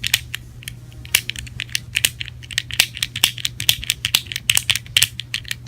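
Cheap plastic fidget cube's light switch flicked back and forth over and over: an uneven run of sharp plastic clicks, about five a second.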